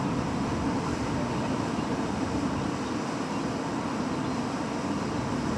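Spartan Gladiator fire engine's diesel engine running steadily at low speed as the truck pulls out of the station bay: a constant low rumble with no siren.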